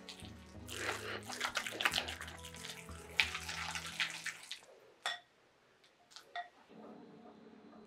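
A spatula stirring and mashing egg salad (chopped boiled egg, mayonnaise and relish) in a glass bowl: wet squishing and scraping strokes for about four seconds, then a few light taps.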